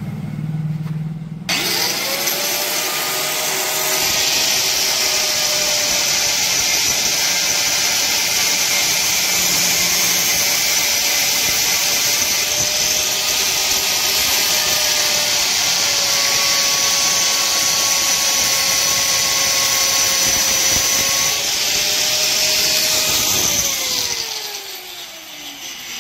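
Angle grinder with a metal-cutting disc spinning up about a second and a half in, then cutting through a cassette deck's front plate with a steady high grinding hiss over its motor tone. Near the end the cutting stops and the grinder winds down with a falling whine.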